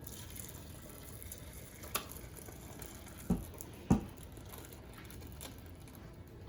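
Curdled milk and hot whey being poured and draining through a cheesecloth, a faint steady trickle of liquid. Three short knocks, about two seconds in and twice just before the four-second mark.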